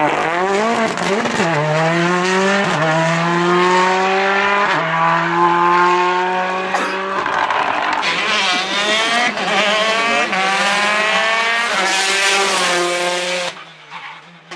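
Ford Fiesta rally car's engine at full throttle, its pitch climbing through several quick upshifts, each shift dropping the pitch. Later a second rally car comes on at full throttle, also shifting up, and the sound cuts off sharply near the end.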